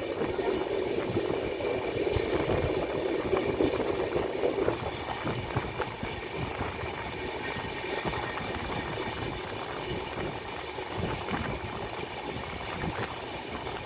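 Express train coaches rolling out of a station, heard from on board: a steady wheel-on-rail rumble with irregular clacks over rail joints and points, louder for the first few seconds.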